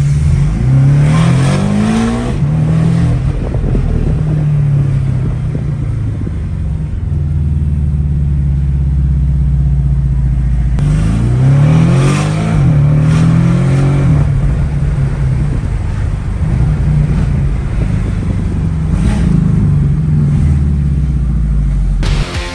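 Porsche 718 Boxster accelerating hard twice, heard from the cabin. Each time the engine and exhaust note climbs in pitch through quick upshifts, and between the runs it settles into a steadier drone. The exhaust has a DPW Evo electronic cutout valve set to its open, sport position.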